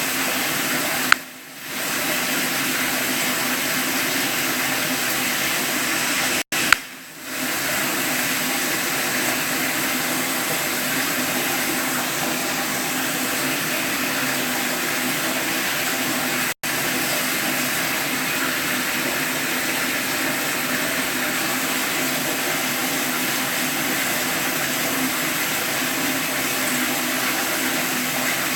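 Steady rushing of running water. About a second in and again about six and a half seconds in, a sharp click is followed by a brief drop in the sound.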